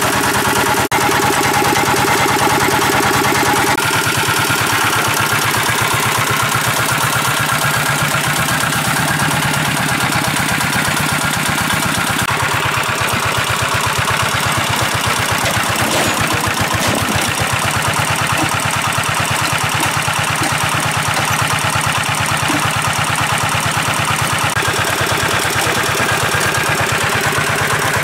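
Engine of a large water pump running steadily, with a fast, even pulsing rhythm.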